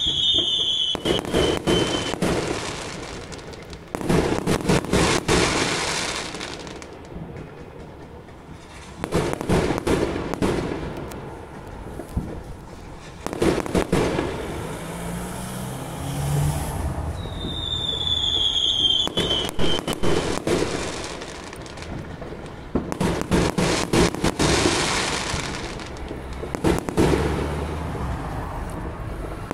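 Fireworks going off in clusters of rapid crackling bangs, a burst every few seconds. A high whistle falling in pitch sounds right at the start and again past the middle.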